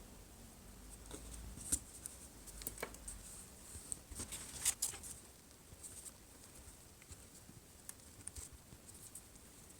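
Small clicks and light scratching of fingers and double-sided tape being handled and pressed along the edges of a phone's frame, with sharper ticks about two and five seconds in.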